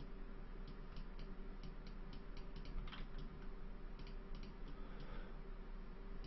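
Scattered clicks of a computer keyboard and mouse, irregular and sometimes in quick runs, over a low steady electrical hum.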